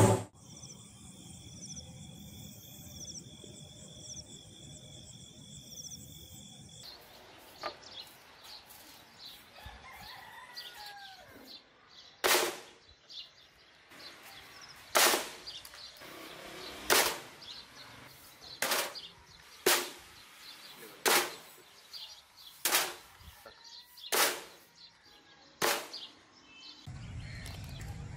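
Forged machete chopping into a green coconut: about nine sharp strikes, one every one to two and a half seconds, in the second half.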